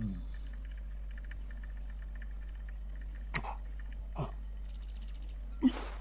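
A steady low hum, with three short, sharp sounds about three, four and five and a half seconds in; the last is the loudest.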